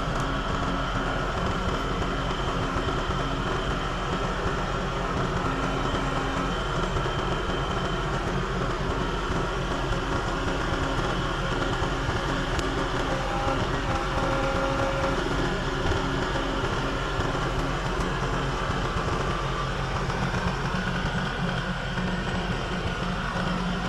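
An engine running steadily at an even pace, with a low hum.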